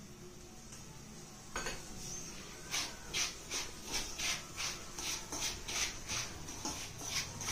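Dry semolina and wheat flour being stirred together in a bowl: a single knock, then a run of short, even scraping strokes, about three a second.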